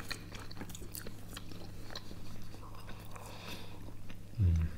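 Close-miked chewing of crisp, flaky croissant: a run of small crunching clicks and mouth sounds, with a short low voiced sound near the end.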